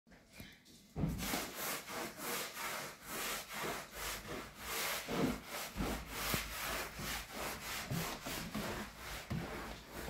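Canister vacuum cleaner starting about a second in, then running with a steady low hum under a rubbing noise that swells and fades two or three times a second as its tube and floor nozzle are moved.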